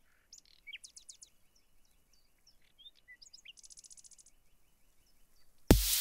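Birds chirping in short high calls and quick glides, with a faint rapid ticking trill. Near the end, loud electronic dance music with a heavy kick drum starts abruptly.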